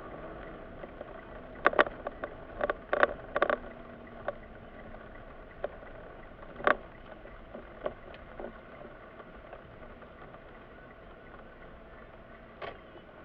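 Steady hum of a Mitsubishi car heard from inside its cabin in slow traffic, with a scattering of short sharp clicks or knocks. A quick cluster of them comes about two to three and a half seconds in, then single ones every second or few.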